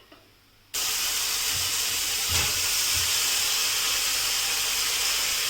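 Marinated chicken going into a hot pan of ghee and sautéed onions: a loud sizzle starts suddenly about a second in and carries on as a steady hiss of frying, with a few dull knocks in the pan partway through.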